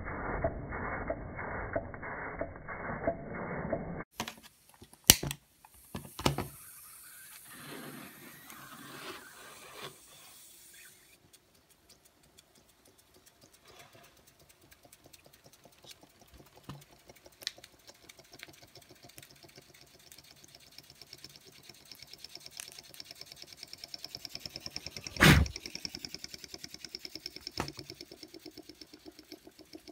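Antique Radiguet No. 2 toy steam engine running, its piston and flywheel clattering in an even rhythm of about two to three beats a second. About four seconds in it gives way to scattered clicks and a few sharp knocks, with a faint fast ticking building in the second half.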